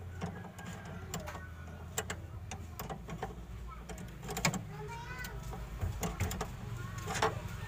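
Irregular clicks and clinks of hand tools on metal while the nuts of a replacement clutch master cylinder are tightened, over a steady low hum.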